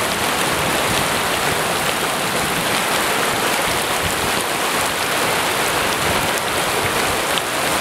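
Flash floodwater rushing past and around a stranded car, with rain falling: a steady, loud wash of water noise.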